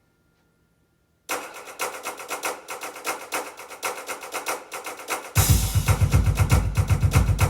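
Yamaha Electone playing a fast, driving instrumental: after a brief silence it starts with rapid repeated notes, and about five seconds in, a heavy bass line and drum rhythm join and the music gets louder.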